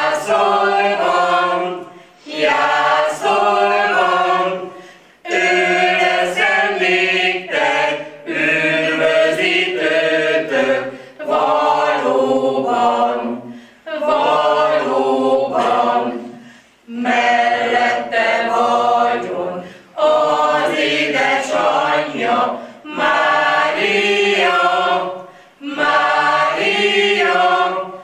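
A small amateur choir of older men and women singing a Hungarian Christmas carol unaccompanied, in phrases of two or three seconds with short breaths between them.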